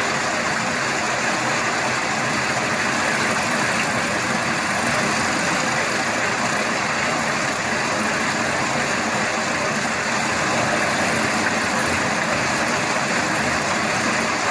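Steady running of a heavy machine's engine, a constant mechanical noise with no changes or distinct knocks.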